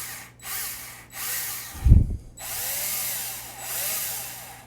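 Power drill with a 3.5 mm bit boring into an iPhone 7's metal body, running in a few short bursts and then a steadier run of about two seconds near the end. A single low thump comes about two seconds in.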